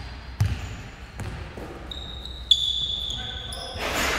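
Basketball thumping on a gym floor twice early on, then high, short squeaks from sneakers on the court, and a louder noisy burst near the end, in a large sports hall.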